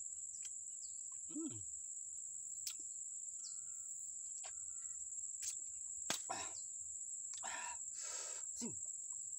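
Steady, high-pitched drone of insects such as crickets, with scattered wet mouth clicks and smacks from a man eating sour santol fruit, a hummed grunt, and a breathy exhale near the end.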